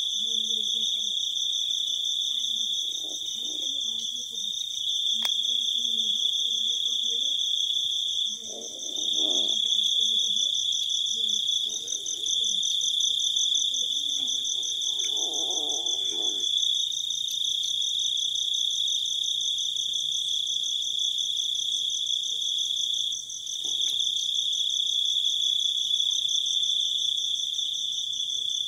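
A steady, high-pitched chorus of night insects, crickets, trilling without a break. Faint voices murmur in the first half.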